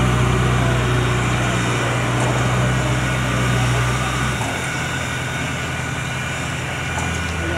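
Backhoe loader's diesel engine running under load as the front loader bucket is raised, with a steady low note that drops abruptly to a lower, rougher idle about four seconds in.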